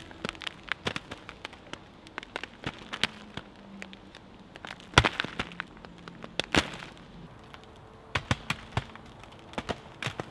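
Lumps of clay being crumbled apart by hand and dropping onto a pile of clods on a tarp: an irregular scatter of sharp cracks and knocks, the loudest about five seconds in.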